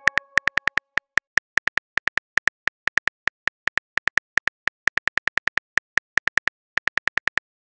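Smartphone keyboard typing clicks: a rapid run of identical short key clicks, several a second, with a couple of brief pauses, as a text message is typed out. They stop just before the end.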